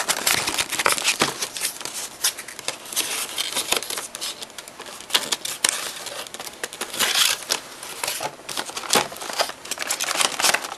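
Packaging of a 1/64-scale model grain cart being torn open and handled: irregular crinkling and tearing with many small sharp clicks.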